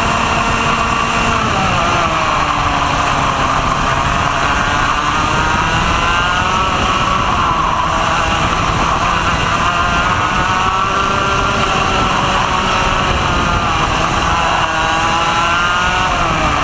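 Two-stroke kart engine heard onboard at racing speed, its revs dropping about a second and a half in as the kart slows for a corner, then climbing and falling several more times through the following corners. Steady wind and track noise runs under the engine.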